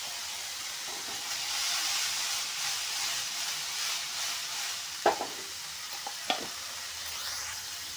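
Parboiled cauliflower florets sizzling as they fry in oil in a pan. The sizzle swells while the pan is tossed, and two sharp knocks follow, a little after halfway and about a second later.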